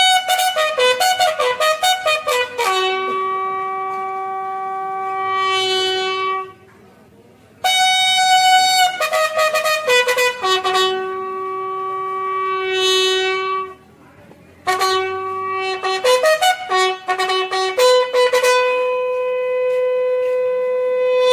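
Bugle call for the flag-lowering ceremony. It plays three phrases, each a run of quick notes ending on a long held note, with short pauses between them.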